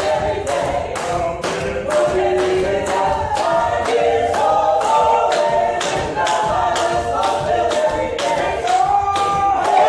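A church choir singing a cappella gospel in several parts, with sharp, evenly spaced beats about three a second keeping time.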